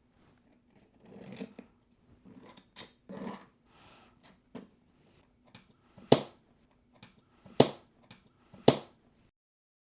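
Painted tabletop terrain pieces scraping and rubbing against each other as they are handled and fitted together, then three sharp, loud clicks, each a second or so apart.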